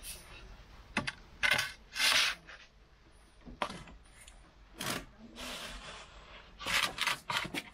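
Wooden baker's peel scraping and knocking on the stone floor of a wood-fired oven as pide are slid in and out: a few short scrapes and sharp clicks, with a cluster of clicks near the end.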